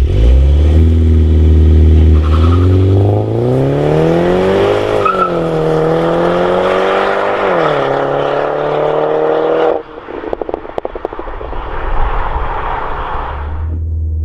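MINI John Cooper Works (F56) 2.0-litre turbo four-cylinder with a Maxi-Tuner Hexagon valve exhaust accelerating hard, its pitch rising through gears with two upshifts, at about 5 and 7.5 seconds. About ten seconds in the throttle closes suddenly and the exhaust crackles and pops on the overrun.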